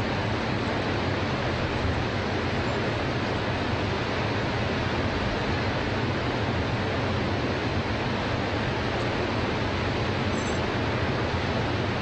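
Steady rushing of Niagara Falls' Horseshoe Falls: a great volume of water plunging into the spray-filled basin, an even noise with no change in level.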